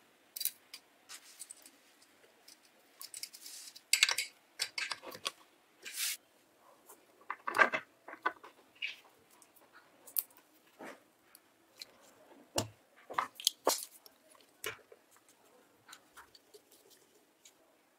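Close-up handling noise from wiring a bench grinder: irregular clicks, taps and rustles as the power cord and wires are worked through the grinder's painted metal base and onto its terminals.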